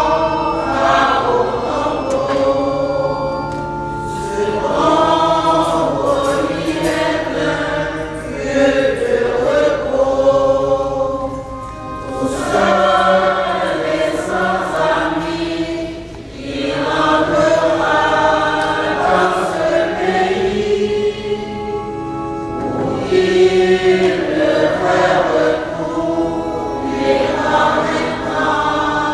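Choir singing a hymn in long phrases, with a short break about sixteen seconds in.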